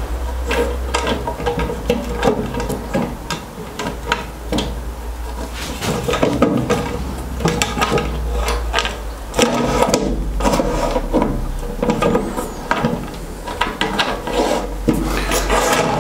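Aluminium rip fence guide rail scraping and knocking against the saw table's edge and its mounting bolts as it is shifted back and forth and worked onto the bolts, with frequent irregular clunks.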